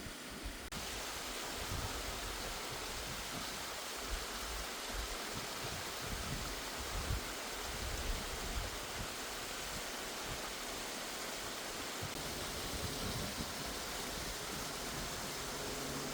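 Steady rush of falling water from a waterfall, with irregular low rumbles underneath.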